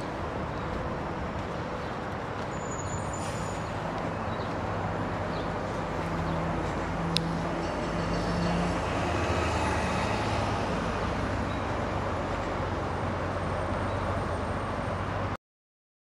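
Steady road traffic noise with a low engine hum from passing vehicles. A single sharp click comes about seven seconds in, and the sound cuts out to dead silence near the end.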